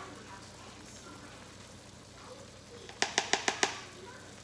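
Faint sizzle from oil and food in a hot wok, broken about three seconds in by a quick run of about six sharp kitchen clicks and clinks.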